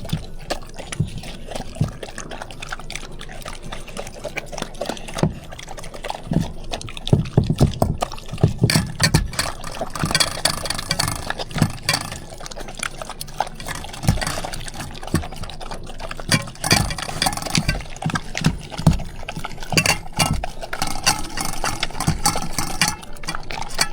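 Several dogs eating broth-soaked freeze-dried food from bowls: wet lapping and chewing with many quick clicks.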